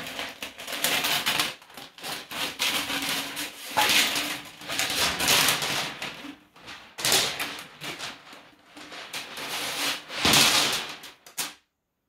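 Steel cable of a 15-foot drum drain auger scraping and rattling as it is pulled out of the plastic drum by hand, in irregular strokes with short pauses.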